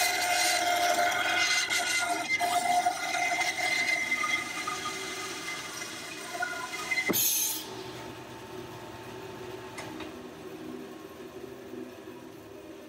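Grizzly G0555XH 14-inch bandsaw with a Wood Slicer resaw blade cutting through a thick block of cherry, a loud steady cutting noise with a whine in it. About seven seconds in the cut ends with a short loud burst of noise, and the saw then runs on more quietly, with a faint tone slowly dropping in pitch near the end.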